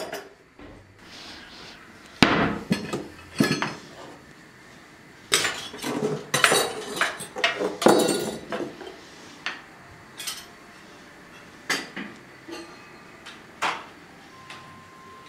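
Kitchen utensils, metal and wooden, knocking and clinking against each other and the drawer as they are handled in a kitchen drawer: a string of sharp clatters in bunches, thinning out towards the end.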